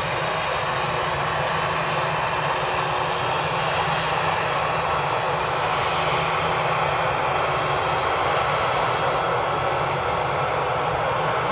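Jet engines of a Batik Air twin-jet airliner running loud and steady as it rolls along the runway.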